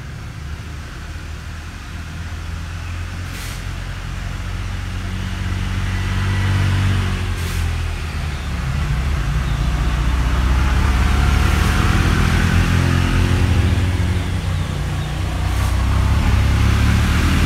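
A motor vehicle's engine running and growing louder, its pitch rising and falling twice, with a brief hiss about every four seconds.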